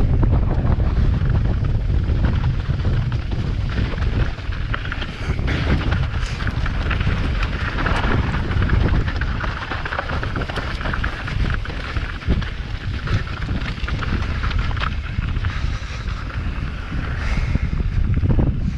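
Wind buffeting the microphone of a mountain bike descending fast over rough trail, with continuous tyre noise over loose ground and scattered rattling knocks from the bike.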